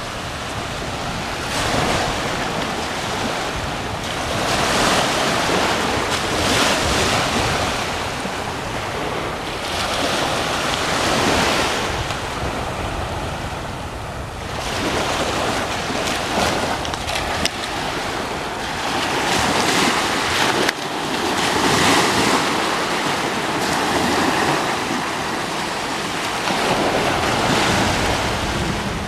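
Small surf waves breaking and washing up onto a sandy beach, the noise swelling and easing every few seconds, with wind buffeting the microphone.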